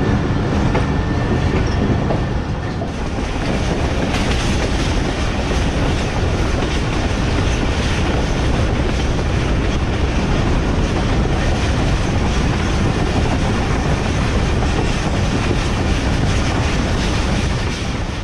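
Passenger train running along the track, with a loud, steady rumble and rush of wheels on rails.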